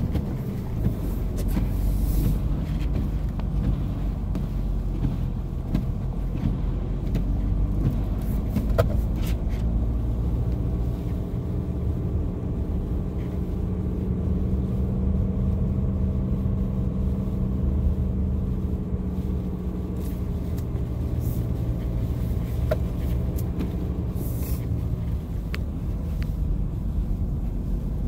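Car driving on a snow-covered road, heard from inside the cabin: a steady low rumble of engine and tyres with an even engine hum.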